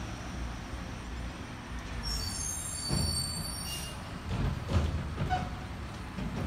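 Distant garbage truck's diesel engine rumbling, with a high, several-toned brake squeal about two seconds in as it slows, then a run of knocks and clatter.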